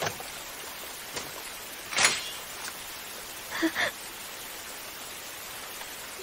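Steady rain falling, with one sudden sharp sound about two seconds in and a shorter sound at about three and a half seconds.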